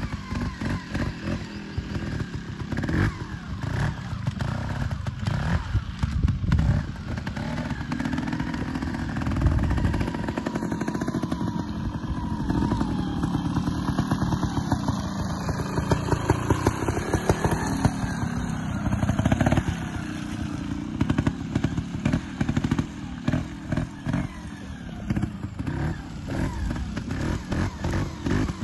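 A Beta Evo 2T trials bike's single-cylinder two-stroke engine runs at low revs and is blipped again and again in short sharp bursts, with a few longer revs as it is ridden over obstacles.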